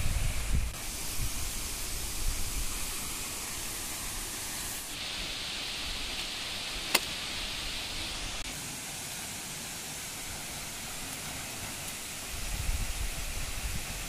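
Steady rushing hiss of a waterfall, its level shifting a few times, with low rumbles of wind on the microphone at the start and near the end and a single sharp click about seven seconds in.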